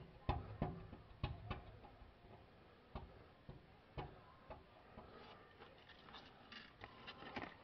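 Faint, irregular light clicks and taps of fingers working sticky epoxy into a rust hole on a steel gas tank, coming quicker and closer together near the end.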